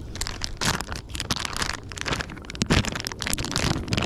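Irregular rustling and crackling clicks, with a low rumble beneath, from close handling while a hooked fish is fought and landed.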